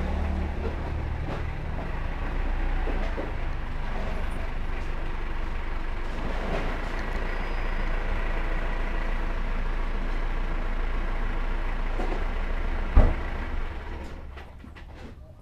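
A large vehicle's engine running nearby, a steady low rumble, with one sharp knock near the end before the engine sound fades away.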